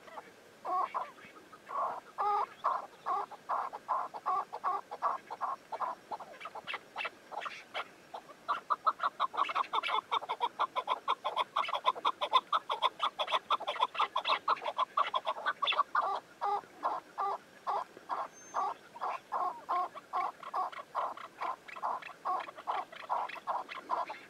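Chukar partridges calling: a long run of short, repeated clucking notes, about three a second. Near the middle the notes come much faster and louder in a dense stretch, then ease back to the slower pace.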